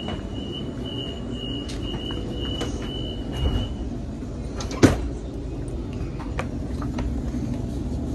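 Sydney Trains electric passenger train heard from inside the carriage, a steady low rumble as it runs alongside a platform. A thin high whine holds steady and stops about four seconds in, and a single sharp knock comes about a second later.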